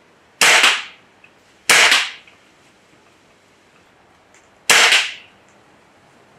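Three shots from a .22 break-barrel air rifle, each a sharp report that fades quickly. The first two come about a second apart, the third a few seconds later.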